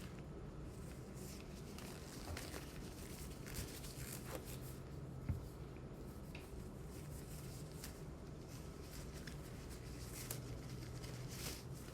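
Faint rustling and crinkling of hand handling, with scattered small clicks and a sharper click about five seconds in, as hands are cleaned and a clean exam glove is pulled on.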